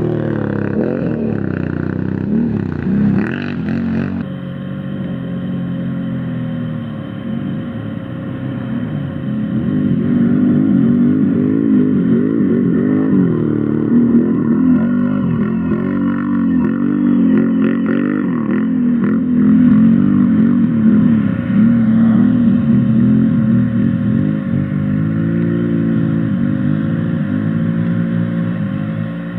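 Can-Am Renegade 1000 quad's V-twin engine racing over rough ground, revving up and down with the throttle so its note rises and falls again and again.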